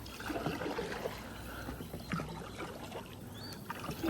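Kayak paddle strokes through river water, with water trickling and dripping off the paddle blades.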